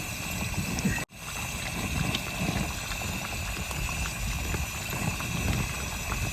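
Spiced gravy bubbling and sizzling in a cooking pot, heard as a steady watery hiss over a low, fluctuating rumble. The sound cuts out for an instant about a second in.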